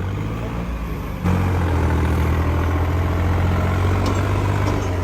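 Heavy tractor diesel engines running steadily, then rising sharply in level about a second in and holding there as they pull under load against each other in a tug-of-war.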